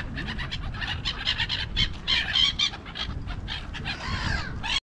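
A flock of birds calling at once, many short calls overlapping, with a few longer gliding calls near the end; the sound cuts off suddenly just before the end.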